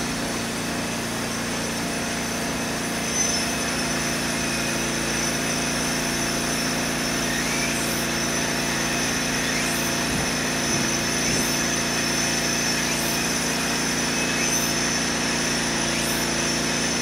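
A steady machine hum with several fixed pitches, holding one level throughout. In the second half, faint short high chirps repeat about every second and a half.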